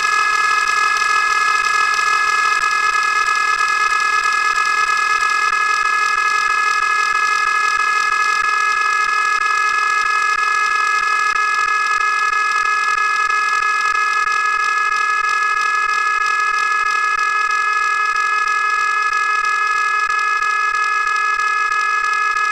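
A loud, steady horn-like tone of several pitches sounding together, held unchanged without a break.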